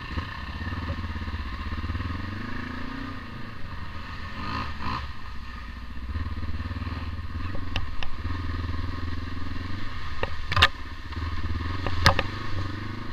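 Kawasaki KLE500 parallel-twin engine running at low to middling revs on an off-road trail, its note rising and falling as the throttle is opened and closed. A few sharp knocks come near the end.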